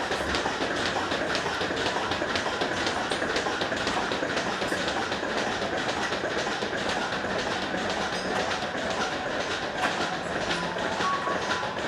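Milking machine running: the milker units' pulsators click and hiss in a rapid, uneven rhythm over a steady vacuum hiss.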